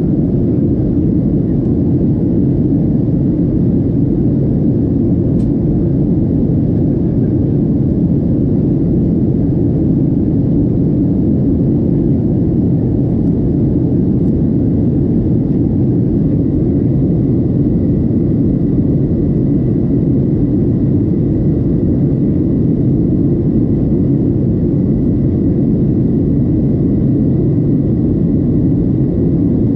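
Cabin noise of a Boeing 737-700 in flight: a loud, steady rumble of its CFM56 engines and rushing air heard from inside the cabin, with a faint, steady high whine above it.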